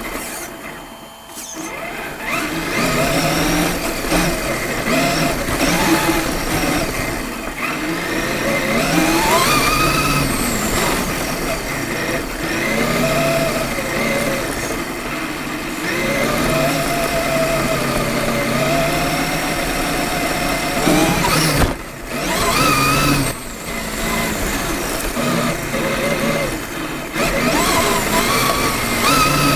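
Electric drive of a radio-controlled Traxxas E-Maxx monster truck whining as it drives over grass, rising and falling in pitch with the throttle. It briefly drops away near the start and again about two-thirds of the way through.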